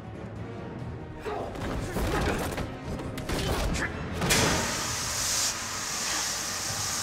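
Drama fight-scene soundtrack: a quick run of thuds and scuffling blows over tense background music, then a loud, steady hiss sets in just after four seconds.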